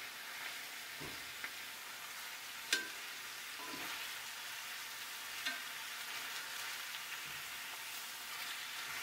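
Chicken thighs sizzling in a wide enamelled pan of onions and reducing liquid while they are turned over with metal tongs. A steady hiss with a few light clicks and knocks of the tongs, the clearest a little under three seconds in.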